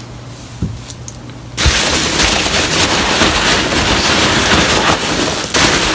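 Hands rummaging through a box of foam packing peanuts: a loud, dense crackling rustle that starts suddenly about a second and a half in.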